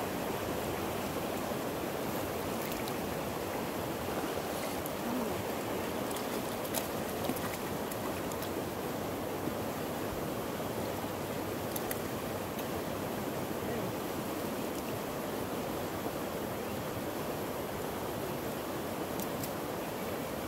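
Steady rush of flowing stream water, with a few faint clicks scattered through.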